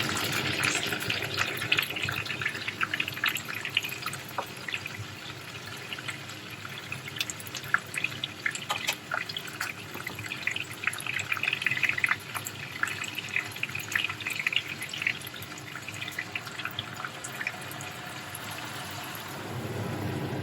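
Kitchen sink sounds: water running and splashing, with scattered small clicks and clinks. The water is busiest in the first half and again around 10–15 seconds, then settles near the end.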